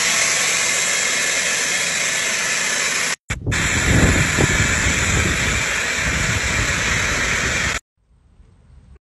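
Loud, steady rushing noise of air, broken by a short gap about three seconds in and cutting off abruptly near the end.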